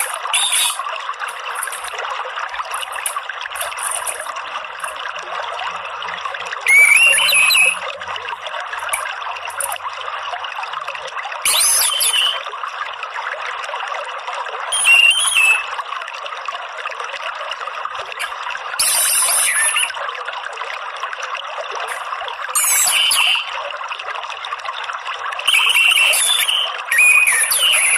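Orange-headed thrush giving short, high, chattering 'ngeriwik' calls, the type played as a lure to set a kept thrush singing. About seven bursts come a few seconds apart over a steady trickle of running water.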